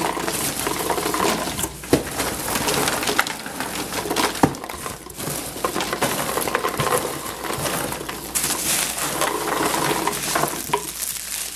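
Packing material rustling and crinkling as a cardboard shipping box is unpacked by hand, with a few sharp knocks along the way.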